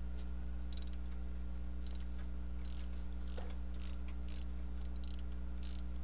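Ratchet clicking in short, irregular bursts as a 3/8-drive ratchet with a 7 mm Allen socket is worked on a brake caliper guide bolt, over a steady low hum.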